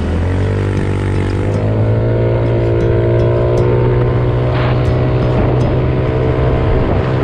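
Motorcycle engine pulling away, its pitch rising in two steps in the first couple of seconds and then holding steady as the bike cruises, with road and wind noise underneath.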